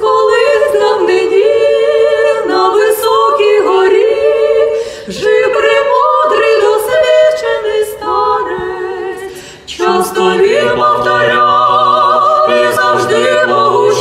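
A small mixed vocal group of four singing a Ukrainian psalm a cappella in close harmony, women's voices leading, with short pauses for breath between phrases. A low man's voice joins about ten seconds in.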